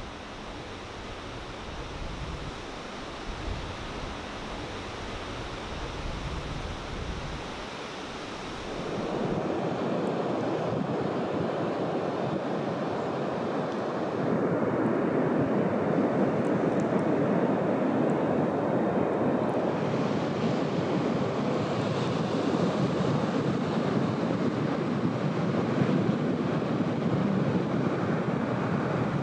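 Ocean surf breaking on a beach: a steady rush of waves and whitewater, with wind buffeting the microphone at first. The surf gets louder and fuller about nine seconds in, and again a few seconds later.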